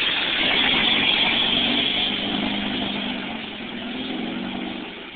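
Motorboat engine running under a loud rushing noise, growing fainter over the last few seconds.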